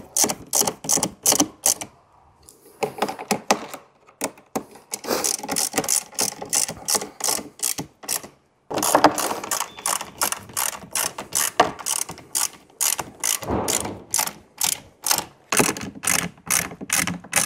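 Small stubby hand ratchet with a hex bit clicking rapidly, about four clicks a second, in several runs with short pauses, as bolts are driven into a plastic body panel.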